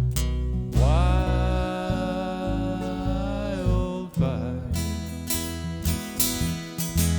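Strummed acoustic guitars over bass in an instrumental passage of a folk song. About a second in, a long lead note slides up into pitch and holds for about three seconds.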